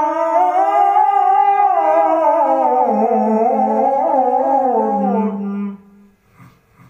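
Male Quran reciter's voice drawing out one long melodic phrase on a single breath in tajweed style, wavering through ornaments and slowly falling in pitch. It stops about a second before the end and is followed by a faint breath.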